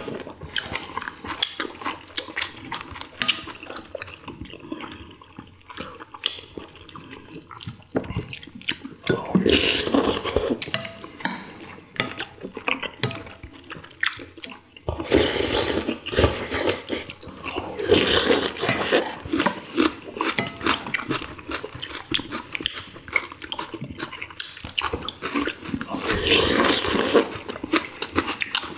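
Several people eating ginseng chicken soup close to the microphones: wet chewing, lip-smacking and slurping of broth, with spoons and chopsticks clicking against bowls. The slurping swells up loudest about ten seconds in, again from about fifteen to nineteen seconds, and near the end.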